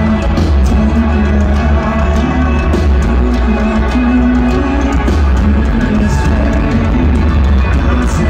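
Rock band playing live through a large outdoor PA, heard from the crowd: electric guitars, bass and drums playing steadily and loud.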